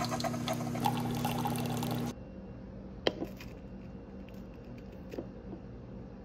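Liquid pouring with a steady low hum under it, stopping abruptly about two seconds in; then quiet room tone with a few faint clicks.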